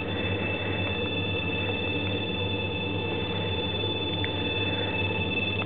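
Handheld Cell Sensor EMF meter's audible alarm sounding a steady high electronic tone while held close to a kitchen fridge, signalling a strong electromagnetic field from the appliance's electrics. A low steady hum runs underneath.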